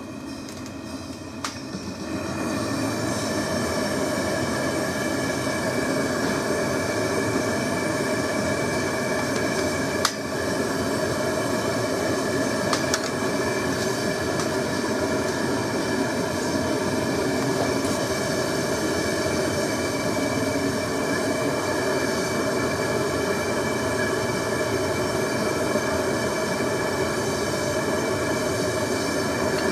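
Homemade propane forge burner, freshly lit, running with a steady rushing hiss and several steady whistling tones, coming up to full strength about two seconds in. A single sharp click about ten seconds in.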